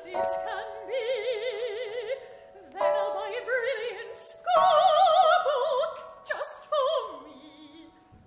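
Operatic singing with wide vibrato over held instrumental chords, in phrases that each enter loudly and die away, the last fading out near the end.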